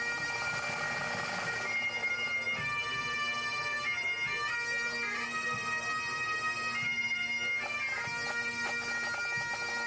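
Pipe band playing a medley set: Great Highland bagpipes carry a stepping melody over their steady drone, with the band's snare drums beneath.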